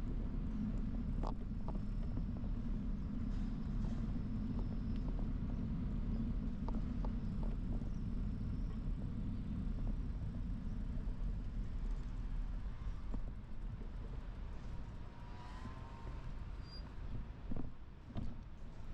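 Bicycle riding over city pavement, heard through a bike-mounted camera: a steady low rumble of tyres and wind on the microphone with occasional light rattles and clicks. The rumble eases off about two-thirds of the way through.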